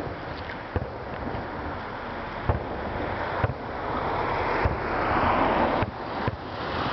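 Aerial firework shells bursting: a string of sharp bangs about a second apart. A rushing hiss swells between about four and six seconds in.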